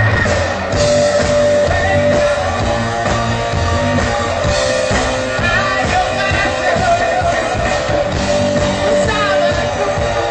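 Percussion group playing a rock-style song with a singer over it; many drum strikes drive a steady beat under the melody.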